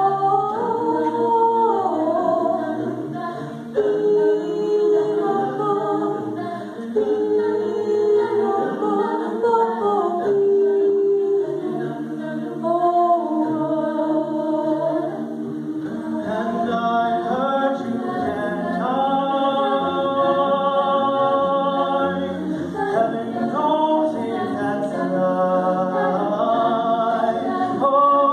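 Mixed vocal jazz ensemble singing a jazz arrangement in close chordal harmony into microphones, with sustained and moving chords.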